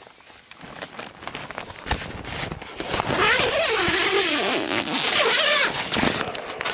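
Tent door zipper drawn in one long pull of about three seconds, its rasp wavering up and down in pitch as the pull speeds and slows. Rustling and handling clicks come before it.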